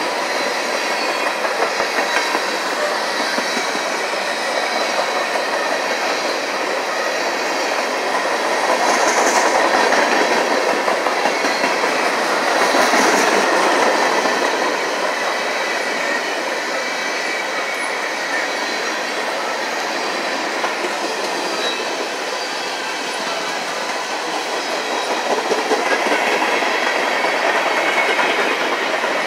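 Freight cars of a CSX trash train rolling past: steady noise of steel wheels running on the rails, with a faint thin steady squeal from the wheels. The noise swells briefly about nine seconds in, again around thirteen seconds, and near the end.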